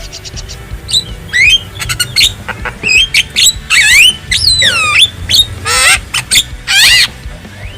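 Javan mynas calling: a quick run of whistles and chattering calls, several sweeping down in pitch, with two harsh, grating calls near the end.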